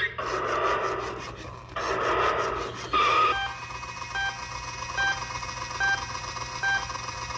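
Battery-powered Road Rippers toy PT Cruiser playing electronic sound effects through its small speaker: two stretches of hissing, rushing noise, a short tone about three seconds in, then a steady electronic pattern with a short beep roughly every 0.8 seconds.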